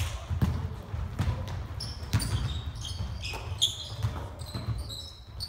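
Basketball game on a hardwood gym floor: sneakers squeaking in short high chirps and a ball bouncing, with players' running footsteps thudding on the court.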